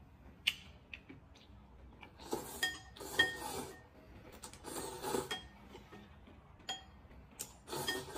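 A person slurping rice noodles from a bowl in several short, noisy slurps, with chopsticks clicking against the ceramic bowl, the sharpest click about half a second in.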